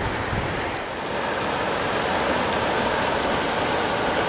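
Ridley Creek in flood, brown floodwater rushing steadily past in a continuous wash of noise that grows a little louder about a second in.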